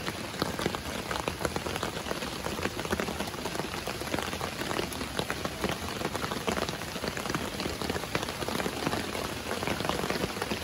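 Steady rain falling on a tent, with a dense, unbroken patter of individual drops striking the fabric.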